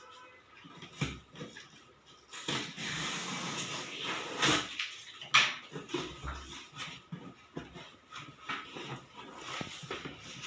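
Unboxing handling sounds: a cardboard carton and its packing rustling, scraping and knocking in irregular bursts as it is opened.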